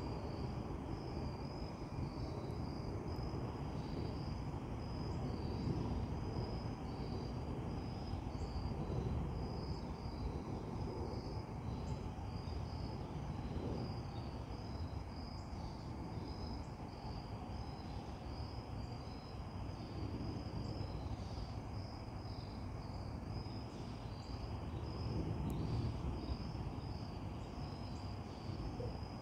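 Insects chirping in a steady, high, pulsing chorus over a low rumble of outdoor background noise.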